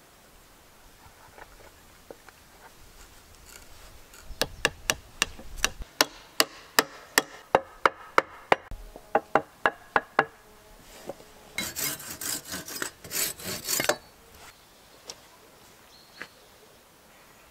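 About twenty hammer blows on the joint of a frame of peeled wooden poles, coming faster toward the end, followed by a couple of seconds of rough scraping.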